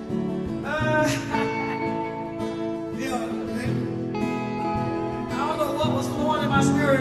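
Gospel music opening: a guitar-led accompaniment playing sustained chords and melodic phrases.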